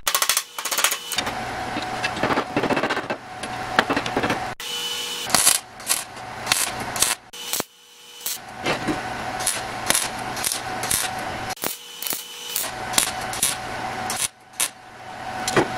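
MIG welder welding steel: the arc's steady crackling in several runs broken by short pauses. A few sharp hammer taps come in the first second.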